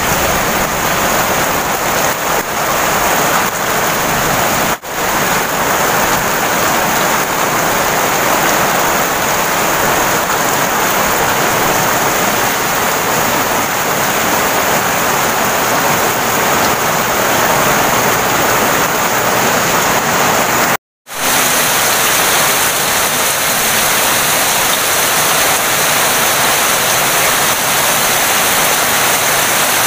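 Heavy rain pouring steadily onto leaves and muddy ground, a dense, loud hiss. It cuts out for a split second about twenty-one seconds in, then carries on as before.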